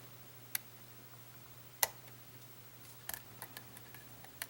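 Scattered sharp metallic clicks from a lock and lock-picking tools being worked: one click about half a second in, a louder one near two seconds, a quick cluster of small clicks about three seconds in, and another near the end.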